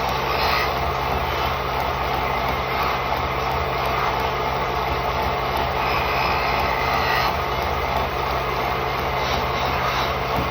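Wood lathe running steadily, a constant motor hum under a dense even noise.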